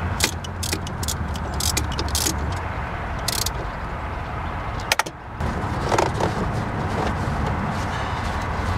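Socket ratchet clicking in quick, irregular runs as a bolt is snugged down, over a steady low hum. About five seconds in there is one sharp click, then softer handling sounds of the plastic air intake duct.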